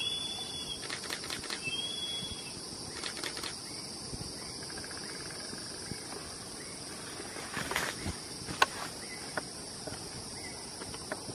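Steady high insect drone, typical of cicadas or crickets, with two short high whistled calls in the first two seconds and scattered light clicks and rustles.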